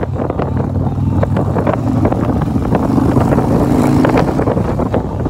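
Harley-Davidson motorcycle engine running steadily at cruising speed, under heavy wind buffeting on the microphone.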